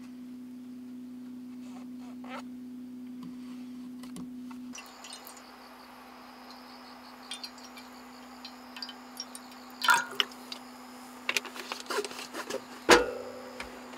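A steady low hum that stops about five seconds in, then scattered light clicks and knocks over a faint high insect-like chirring. Two louder knocks come near ten seconds and near the end, the last one ringing briefly.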